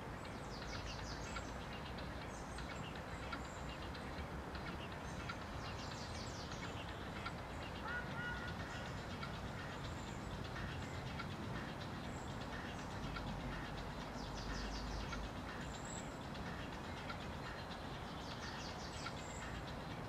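Steady outdoor background rumble with short high bird chirps recurring every second or two.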